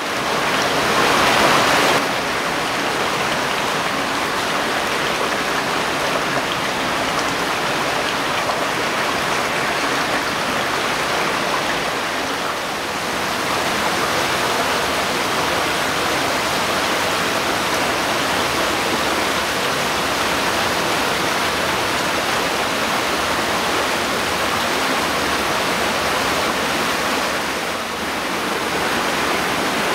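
Stream water rushing and splashing over rocks, a steady watery rush. It is louder for the first couple of seconds, with slight shifts in level partway through and near the end.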